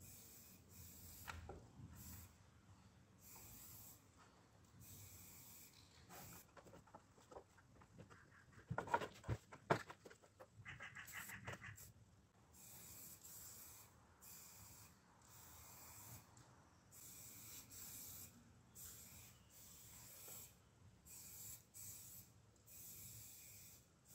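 Aerosol spray paint can hissing in short, repeated bursts, each about half a second to a second long, as paint is sprayed onto a wall. A brief clatter of sharp knocks and rattling comes near the middle.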